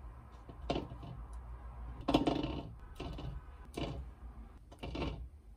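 Peeled hard-boiled eggs being dropped one at a time into a bamboo bowl: about five dull knocks, the loudest about two seconds in, over a low steady hum.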